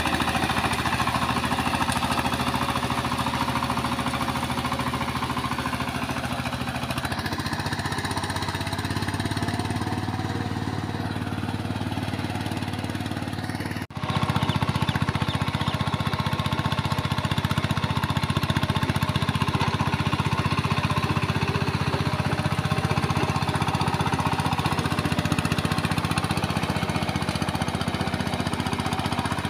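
VST Shakti power tiller's single-cylinder diesel engine running steadily under load with a rapid knocking beat as it tills a flooded, muddy paddy field. The sound drops out for a moment about halfway through.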